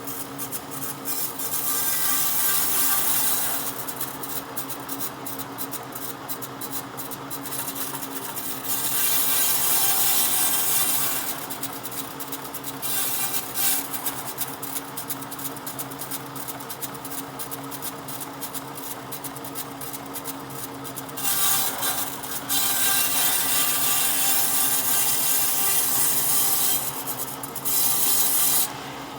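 Hand working of wood: a tool rasping or scraping across the wood in rapid repeated strokes, in stretches that alternate with louder, smoother passes. A steady low hum runs underneath.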